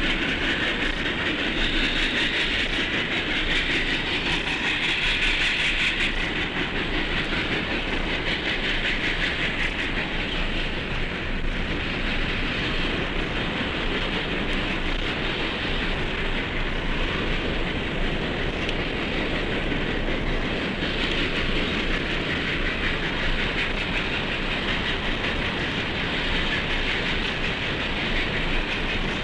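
A train rolling by on the track, its wheels clattering steadily over the rail joints without a break.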